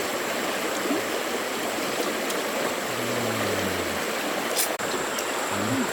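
Stream water rushing steadily, with a single short click near the end.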